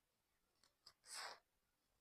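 Faint crumbling of dry sand-cement: a couple of small ticks, then one soft gritty crumble about a second in.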